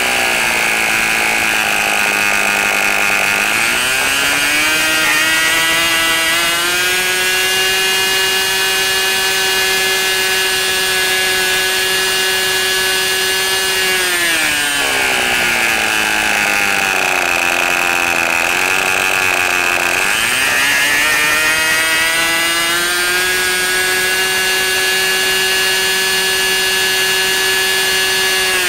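A 40-size two-stroke model glow engine turning an 11x6 propeller, running at high revs with a steady, high-pitched buzz. Its speed sags near the start and again about halfway through, each time climbing back to full revs a few seconds later.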